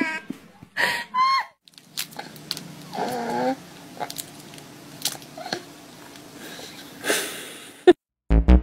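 A crying baby's last short, rising wails, then quieter room sounds with a brief baby whimper and a few light clicks. Loud rhythmic music starts near the end.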